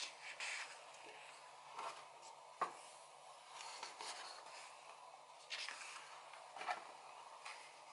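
Paper pages of a photobook being handled and turned by hand: soft rustling and sliding of paper, with a few short crisp flicks and taps, the sharpest about a third of the way in.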